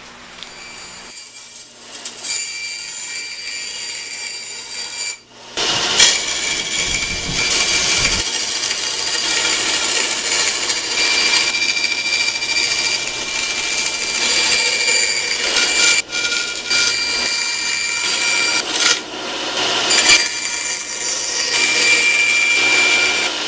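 A bandsaw running and cutting through a sheet of cardboard: a steady whine with a constant high tone. It gets much louder about five seconds in, when the cut is under way.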